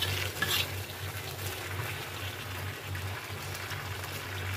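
Bell pepper and fish pieces sizzling in a hot wok, with a metal spatula scraping and stirring them about half a second in. A low steady hum runs underneath.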